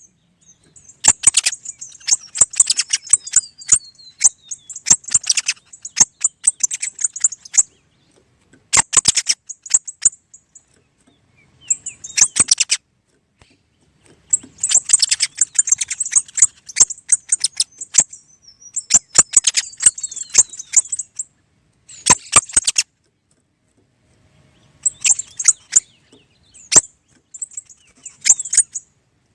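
Small songbirds chirping and twittering in rapid spells of high notes and clicks, with a couple of falling whistles. Short pauses fall between the spells.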